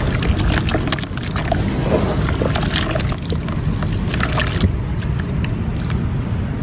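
Marble-powder crumbles breaking up in water, a dense run of small crackles and crunches that thins out about two-thirds of the way through, over a steady low rumble.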